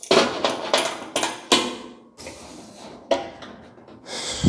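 Sheet metal roof panel clanking against the buck's metal rods as it is lifted and set into place for a test fit: a quick run of sharp knocks, another knock a little later, then a heavier, deeper thump near the end.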